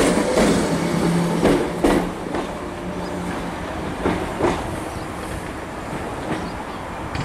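Southern Class 313 electric multiple unit pulling out of the station: its wheels click over the rail joints over a low steady motor hum. It fades after a couple of seconds as the train draws away, with a few last clicks about four seconds in.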